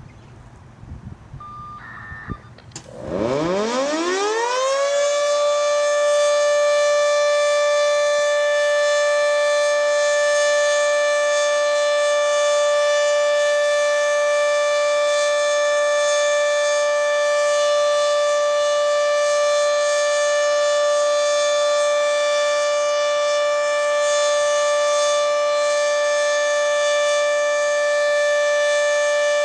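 Federal Signal 2T22A dual-tone electromechanical tornado siren starting up about three seconds in: its pitch winds up over a couple of seconds, then it holds a loud, steady two-tone chord for the Alert signal. Its top is partly clogged, according to the uploader, and it sounds with strong echoes.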